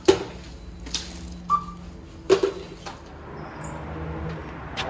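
Packaged goods knocked and set down at a supermarket self-checkout, several sharp knocks and rustles with one short scanner beep about a second and a half in; after about three seconds this gives way to a steady open-air hiss.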